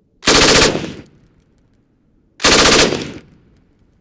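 Chinese Type 56 RPD belt-fed light machine gun in 7.62×39mm firing two short bursts about two seconds apart. Each burst lasts under half a second, with a rapid string of shots and a fading echo after it.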